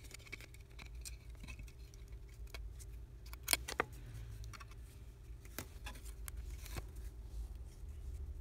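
Scattered small clicks and taps of a OnePlus 3T's parts (frame, flex cable, LCD panel) being handled during disassembly, a cluster of louder clicks a little past the middle, over a steady low hum.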